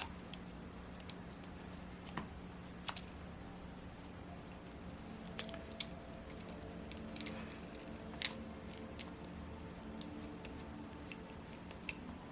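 Scattered light clicks and taps of small metal engine parts and hand tools being handled, with the sharpest click about eight seconds in, over a faint steady hum.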